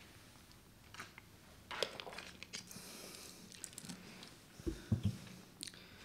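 Faint scattered clicks and rustles, with two soft low thumps near the end: small handling noises picked up by a lectern microphone.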